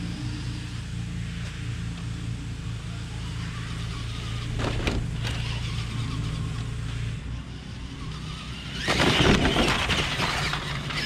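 Tamiya Super Clod Buster RC monster truck driving across grass, its brushed electric motors and gearboxes giving a steady drone. It gets louder near the end, with a rushing, rattling surge as the truck drives up toward the camera.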